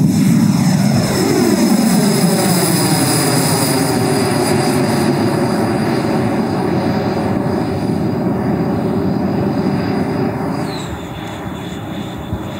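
Electric ducted fan of an RC jet (JetFan-120 Pro with a HET 800-73 motor) running at high power as the jet lifts off and climbs away: a loud, steady rushing whine with high fan tones. A little after ten seconds it drops slightly in level and a high tone slides down in pitch as the jet moves off.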